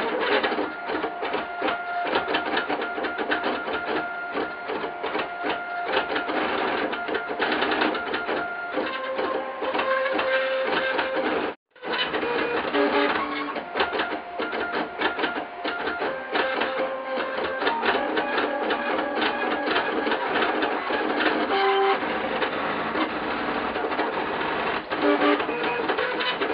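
3D printer's stepper motors driving its lead-screw axes while printing, a busy stream of short pitched whirring tones that change pitch with each move of the print head. The sound drops out for an instant about twelve seconds in.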